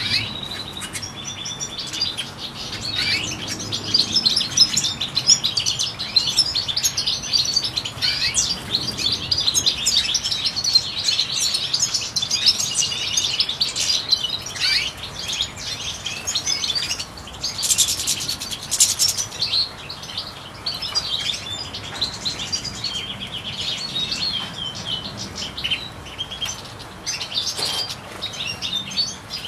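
Several European goldfinches chirping and twittering, with quick overlapping trills and calls throughout. A short rustling flurry comes about two-thirds of the way in.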